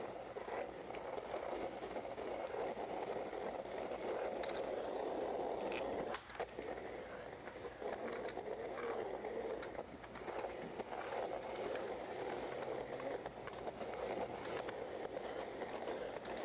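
Skateboard wheels rolling on asphalt with a steady roar, broken by a few small clicks and rattles from the board, and a short lull about six seconds in.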